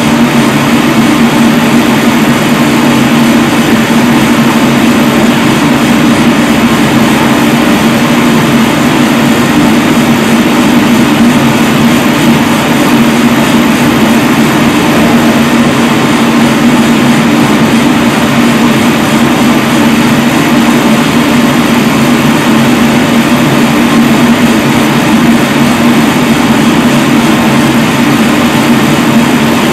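Sonofresco fluid-bed coffee roaster's blower running steadily in its cool-down cycle with the gas off, pushing air through the freshly roasted beans: a loud, even rush of air with a steady low hum.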